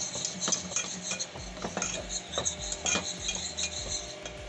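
Wire whisk scraping and clinking against the sides and bottom of an aluminium saucepan as dry flour is stirred and roasted: an uneven run of light metallic clicks and scrapes, several a second.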